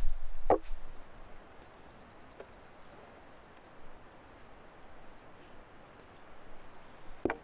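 Faint outdoor background noise, with a sharp knock about half a second in and another near the end.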